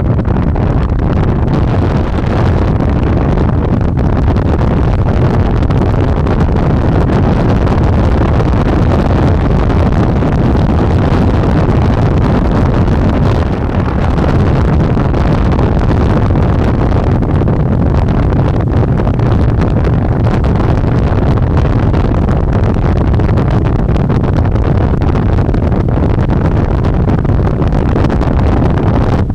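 Heavy wind buffeting the microphone while riding an electric bike at speed, a loud, steady low rumble with no engine note.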